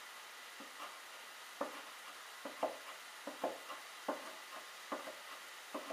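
Santoku kitchen knife chopping parsley on a wooden cutting board: about a dozen irregular knocks of the blade against the board as it rocks and chops.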